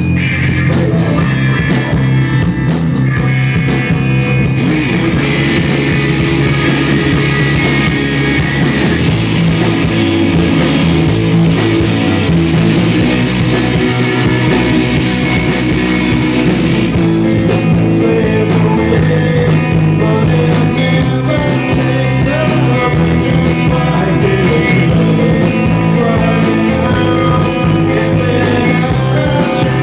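Live rock band playing loud, with electric guitars and drums. A man's voice sings along near the end.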